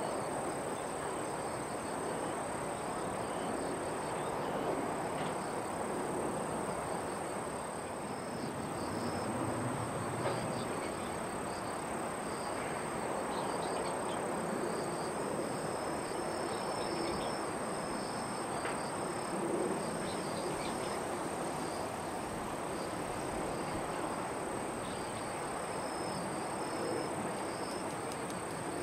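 Steady outdoor background noise with a constant high-pitched whine and scattered short chirps; no aircraft passes close by.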